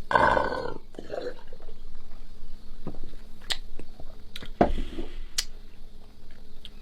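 A person's breathy throat sound at the start, then a few short mouth clicks and small noises, while straining to hold back a burp after chugging sparkling water.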